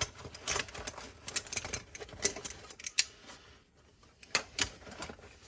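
Metal hand tools (pliers) clicking and clinking as they are handled and slotted into a tool bag, in a rapid run of sharp clacks, then a pause and two more clicks near the end.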